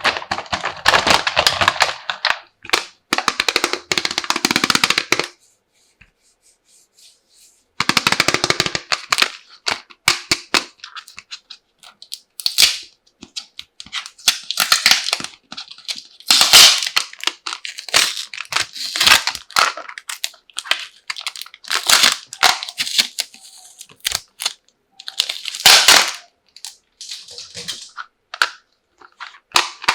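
Small plastic toy kitchen and tableware pieces and their packaging being handled: rapid clicking, rattling and crinkling in bursts, with a pause of a couple of seconds near the start.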